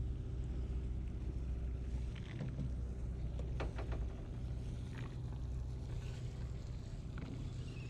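Sportfishing boat's engine running with a steady low hum, with a few brief faint clicks and knocks over it.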